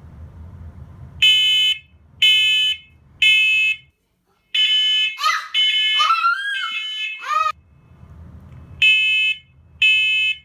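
Hardwired smoke and carbon monoxide alarm sounding on test: loud, high-pitched beeps in groups of three, about a second apart, the pattern that shows the alarm is working. In the middle a wavering, gliding pitched sound mixes in with the beeps.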